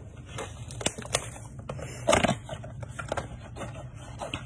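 A shrink-wrapped cardboard trading-card box being unwrapped and opened by hand: plastic wrap rustling and crinkling, cardboard scraping and a scatter of small clicks, with one louder scrape about two seconds in.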